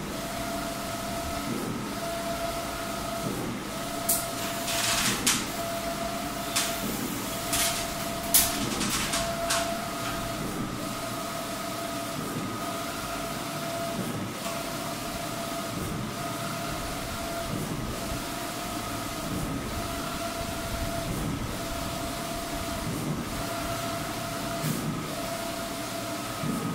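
Wide-format inkjet printer at work: the print-head carriage drive whines in a steady tone that repeats about every second and a half as the head sweeps back and forth, over a constant higher hum. A few sharp clicks and short hissing bursts come between about four and ten seconds in.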